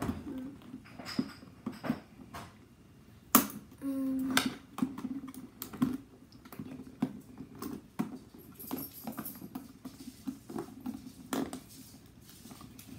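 Hard plastic L.O.L. Surprise toy ball being handled and prised open by hand: irregular plastic clicks, taps and scratching, with a sharp click about three seconds in.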